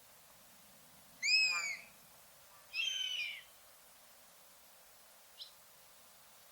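Common buzzard giving two high, mewing calls about a second and a half apart, each one brief and falling in pitch at the end. A short faint call follows near the end.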